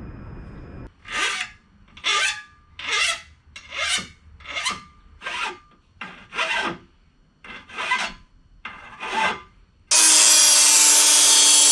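Hand file scraping along the edge of a piece of aluminum angle, about a dozen push strokes to smooth and round the cut edges. Then an angle grinder with a cut-off disc starts abruptly, much louder, cutting the aluminum angle.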